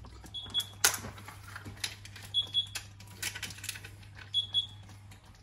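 A silicone spatula stirring and tapping against a non-stick frying pan of simmering sauce, with scattered clicks and knocks, the loudest about a second in. Three short high electronic beeps sound about two seconds apart, over a steady low hum.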